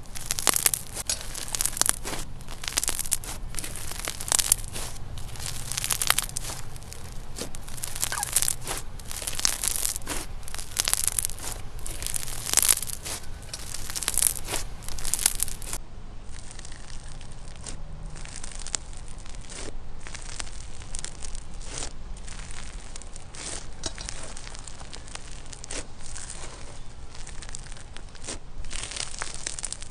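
Hands kneading, squeezing and pressing a thick, textured slime, giving a dense run of crackles and small pops as air pockets burst. About halfway through the crackling turns softer and duller.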